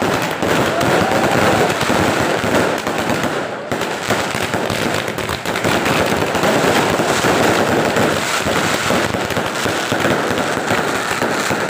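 A 138-shot fireworks cake firing in rapid succession: a loud, unbroken run of shots launching and bursting overhead.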